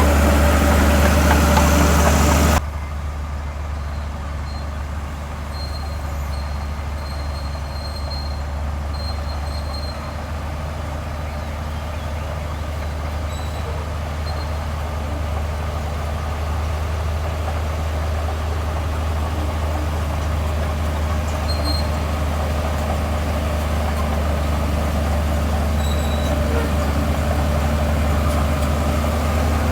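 Heavy diesel engine of earthmoving machinery running. A louder, noisier stretch cuts off abruptly about two and a half seconds in, leaving a steady low engine drone that slowly grows louder.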